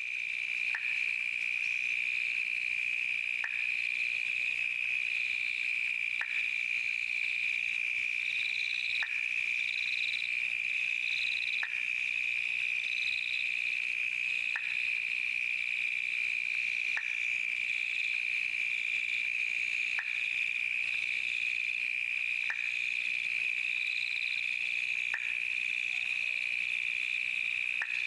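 Night insect chorus: a steady, unbroken high trill, with a fluttering chatter above it and a faint short tick repeating about every two and a half seconds.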